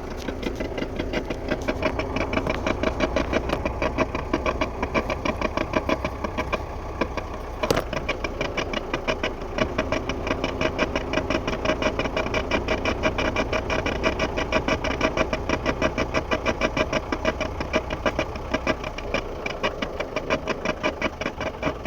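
Rhythmic grinding knock from a freshly installed driveshaft on a 1972 Mercedes-Benz 220d, several pulses a second over the car's running, swelling and fading as it goes, with one sharp click about eight seconds in. The owner suspects he made the driveshaft too long when extending it, or that a broken speedometer cable is to blame.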